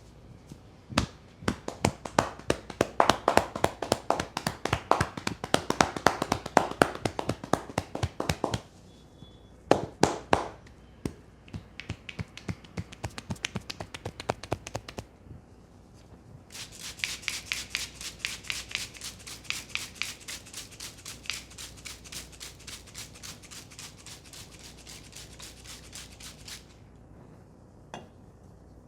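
Rapid hand tapping and slapping on a person's head during an Indian head massage, several strikes a second, in two long runs. The second run is crisper and higher, and there are a few scattered taps between the runs.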